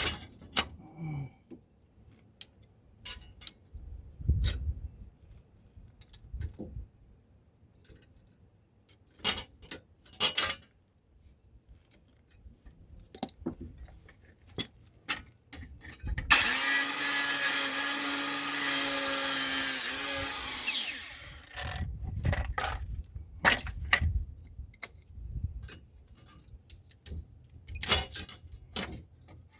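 Metal tools clinking and knocking during car repair work, with a power tool running for about four and a half seconds in the middle.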